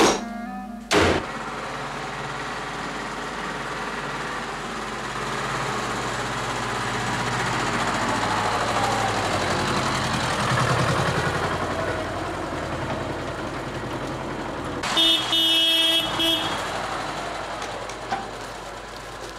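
Farm tractor engine running as it tows a trailer past, growing louder toward the middle and then fading. A sharp knock about a second in, and a vehicle horn honking briefly near the end.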